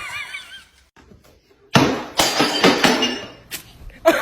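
A sudden crash about two seconds in, followed by clattering and clinking for over a second.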